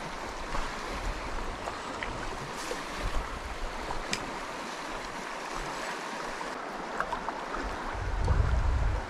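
River water rushing past in a steady hiss, with wind buffeting the microphone as a low rumble about eight seconds in.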